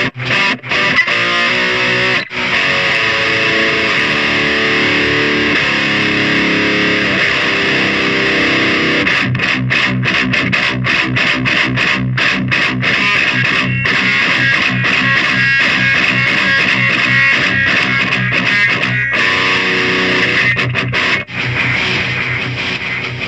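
Electric guitar played through a Solar CHUG distortion pedal, heavily distorted. Held chords ring out for the first several seconds, then give way to tight stop-start chugging riffs with abrupt stops.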